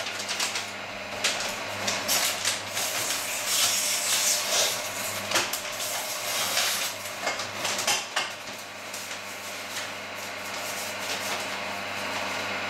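Electric meat slicer running with a steady hum while a large paper envelope is pushed against its spinning blade, the paper rustling and scraping with scattered clicks. The blade is not cutting through the envelope. The scraping is busiest in the first half and eases off later.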